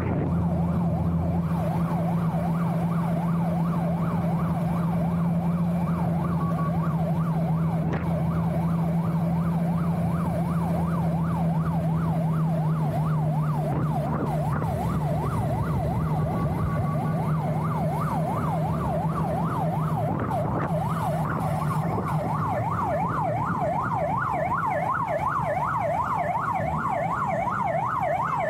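Escort motorcycle siren on a yelp setting, sweeping rapidly up and down several times a second, growing stronger in the second half. Underneath it is a steady low drone from the moving Kawasaki GTR 1400 motorcycle and the road, which fades about two-thirds of the way through.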